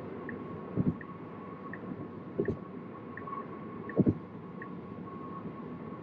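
Cabin of a Tesla Model 3 at highway speed: the turn signal ticks steadily, about one click every 0.7 s, during an automatic lane change to the right and stops a little past halfway. Over a steady tyre and road hum come three loud double thumps, front then rear wheels hitting road joints.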